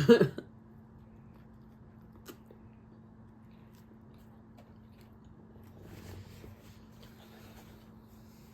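Soft, quiet chewing of a bite of fried spicy chicken sandwich, with a short click about two seconds in and a slightly louder patch of chewing around six seconds. A faint steady hum runs underneath.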